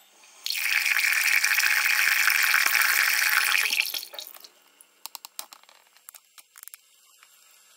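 Faucet running water into a sink. The stream starts about half a second in, runs steadily for about three and a half seconds and then stops, leaving a few faint scattered drips and ticks.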